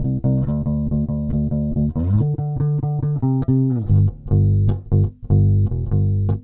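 Warwick Rockbass Streamer Standard 4-string electric bass played fingerstyle through its neck pickup alone, with the tone control fully open. It plays a quick run of repeated plucked notes, slides up about two seconds in and back down near four seconds, then plays shorter, detached notes.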